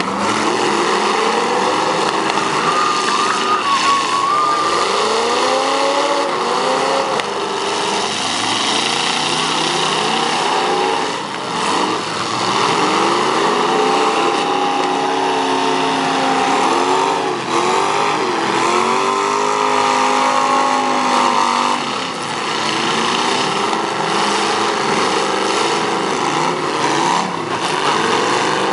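Several demolition derby cars' engines revving up and falling back over and over as they manoeuvre and ram each other, their pitches overlapping.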